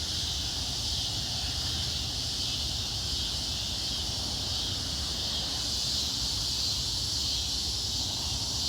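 Steady, unbroken chorus of crickets and other night insects, with a low rumble from the distant approaching diesel freight train underneath.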